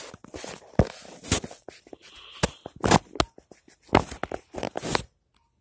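Close handling noise of a phone: rubbing against its microphone and a series of sharp knocks and taps, stopping abruptly about five seconds in.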